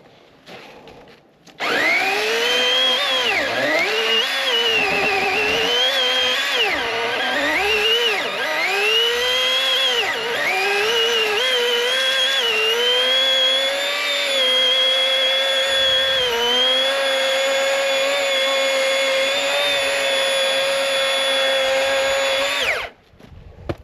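Master Force 80-volt cordless electric chainsaw whining as it starts. For the first ten seconds or so its pitch sags and recovers again and again as it loads up in the cut, then it runs at a steady high pitch before cutting off abruptly near the end.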